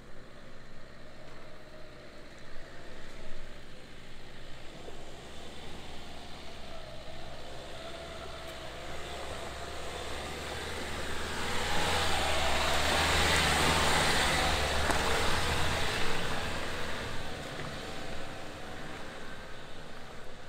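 Dacia Duster's 1.5 dCi diesel engine pulling slowly up a rutted dirt track. It grows louder as the SUV passes close about 12 seconds in, with a rush of tyre and scraping noise, then fades as it drives away.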